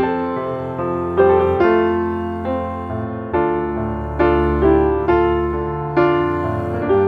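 Background piano music: chords struck about once a second, each decaying before the next.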